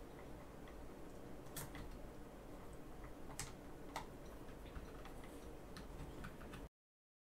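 Light clicks and taps of a small hex driver and screws being worked on the plastic chassis of a Traxxas Slash RC truck, a few sharper ones about a second and a half, three and a half and four seconds in. The sound cuts off abruptly near the end.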